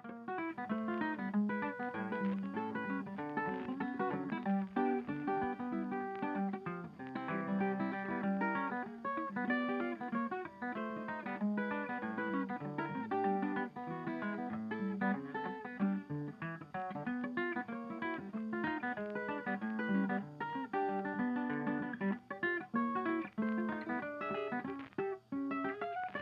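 Background music: quick plucked acoustic guitar with strummed chords.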